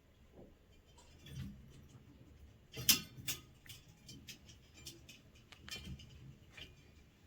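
A cat's paws stepping on stairs: a series of light, irregular taps and knocks, with one sharper knock about three seconds in.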